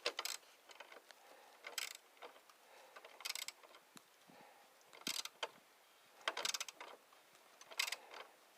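Socket ratchet wrench clicking in short bursts, about six strokes a second or so apart, as a bolt is worked.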